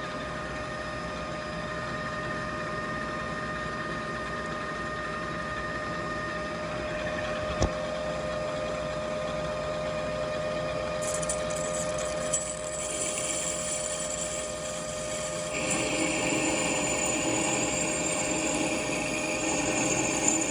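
Metal lathe running with a steady motor hum, with one sharp click about a third of the way in. From about halfway a higher-pitched hiss comes in, and then louder cutting noise as the tool works the metal part.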